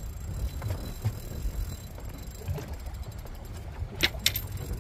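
Spinning reel being cranked to retrieve line against a hooked fish, with light rapid ticking from the reel over a steady low rumble. Two sharp clicks about four seconds in.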